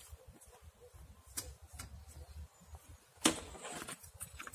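Metal-framed folding camp chair being opened out and set down: a few light clicks of the frame, then one louder clack about three seconds in.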